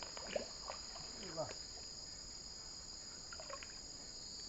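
Steady high-pitched drone of a chorus of night insects, with a few short clicks and knocks in the first second and a half.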